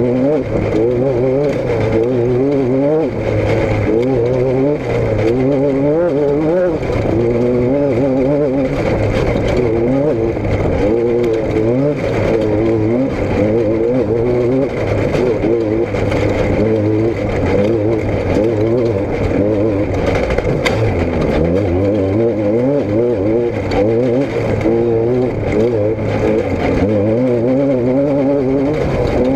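A vehicle engine revving up and down over and over, its pitch rising and falling every half second or so over a steady low hum.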